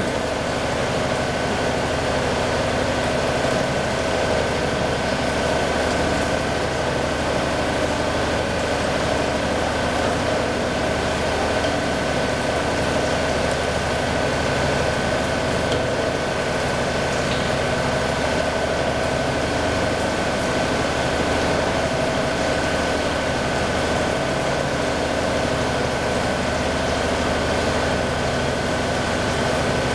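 CNC machining center milling under flood coolant: the spindle and cutter run steadily through the cut, with a constant high whine over the cutting and coolant noise. This is a cutting test of the finned tool holder.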